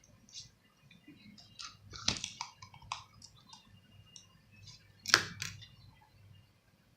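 Homemade slime being squeezed and poked, giving scattered small clicks and crackles, with two louder pops about two seconds and five seconds in.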